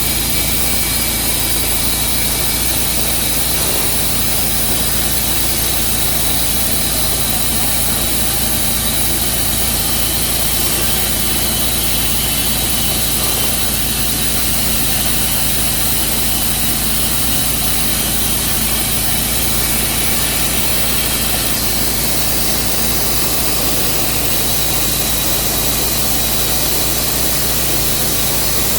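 Tru Cut sawmill running steadily, its engine holding one even note with no revving or change in pitch.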